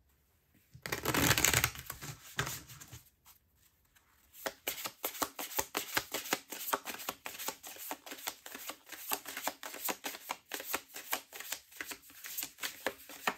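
A deck of oracle cards being shuffled by hand. There is a loud rustle about a second in, then from about four seconds in a long run of quick, even card slaps, several a second.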